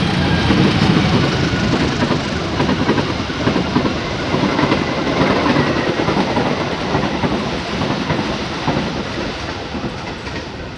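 A long-distance passenger train behind a diesel locomotive passing straight through at speed. The locomotive goes by loudest at the start, then the coaches' wheels rumble and clatter over the rails. The sound fades near the end as the last coach moves away.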